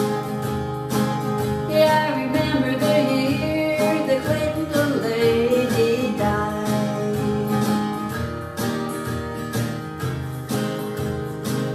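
Acoustic guitar strummed in a steady country rhythm, playing out the end of the song. A wavering melody line rides over the strumming from about two to six seconds in.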